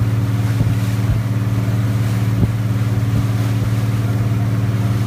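Boat engine running at a steady speed, a constant low hum, with a few brief knocks.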